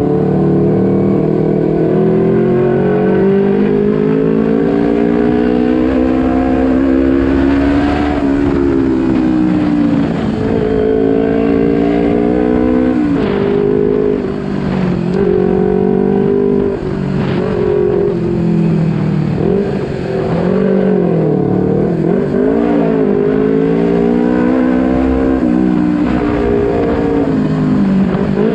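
Kawasaki Ninja 250 Fi parallel-twin engine under riding load. The revs climb steadily for the first eight seconds, then drop and rise again several times as the bike shifts gear and eases off.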